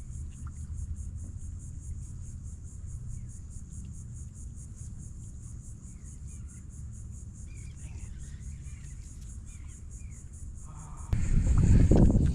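Insects trilling in a steady, evenly pulsing high chorus over a low rumble. About eleven seconds in, a much louder noisy rush cuts in.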